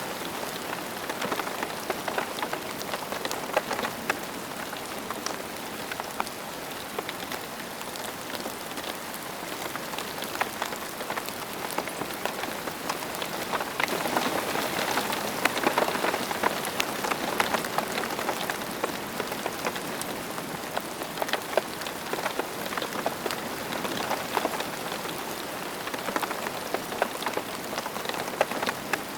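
Steady rain falling, with many separate drops ticking close by; it grows a little heavier about halfway through, then eases back.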